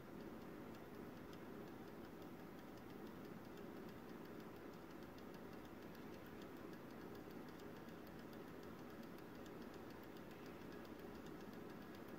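Faint, quick, regular ticking from the solenoid of a small Arduino-timed rotary magnet motor, pulsing in step with the spinning magnets, over a steady low hum.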